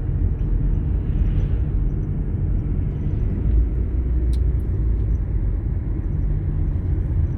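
Steady low rumble of a vehicle on the move: engine and road noise, even and unbroken.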